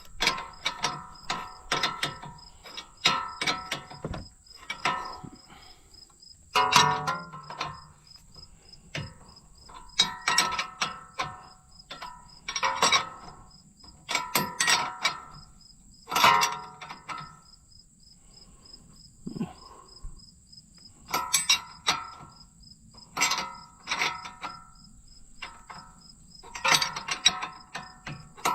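Hand tools clinking and knocking on steel while working the tie rod nuts, in bursts of sharp metallic clicks with a short ring, about every second or two. Crickets and other insects drone and chirp steadily underneath.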